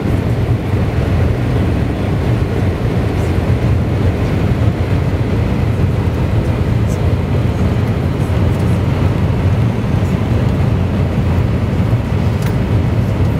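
Steady low rumble of engines and rushing air heard inside the cabin of an Airbus A319 airliner on final approach with its flaps down.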